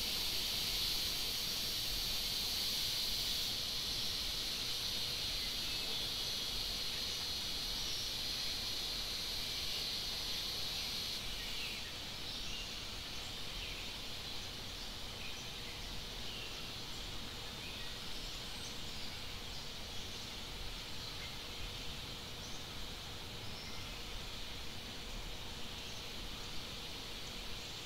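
Forest ambience: a steady high-pitched insect buzz that cuts off about twelve seconds in, leaving faint scattered bird chirps over a low background hiss.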